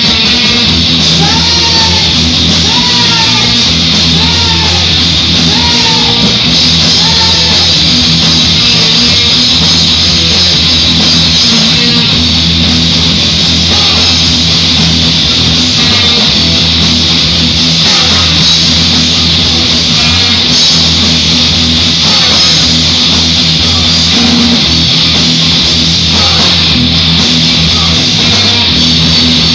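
Rock band playing loud and without a break: electric guitars, bass guitar and drum kit played through amplifiers.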